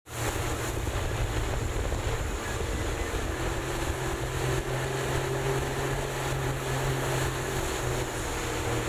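MasterCraft wakeboard boat's inboard engine running at speed with a steady drone, mixed with wind on the microphone and water rushing past the hull. The sound fades in at the very start.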